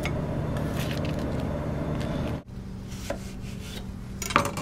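Light kitchen handling noises of a knife and food on a wooden cutting board over a steady low background hum, with a small knock a little after three seconds and a sharper clatter near the end. The background drops abruptly about halfway through.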